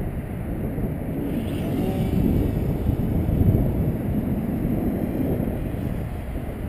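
Wind buffeting the microphone with a steady low rumble. The electric motor and propeller of a Stryker-style foam flying-wing RC plane are heard faintly as a thin whine passing overhead about a second and a half in.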